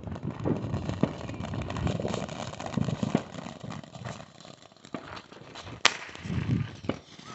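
Fireworks going off: irregular crackling pops and cracks, with one sharp, louder crack about six seconds in.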